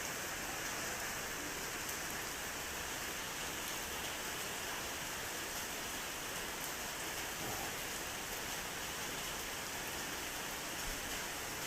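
Steady rain, an even hiss with no single sound standing out.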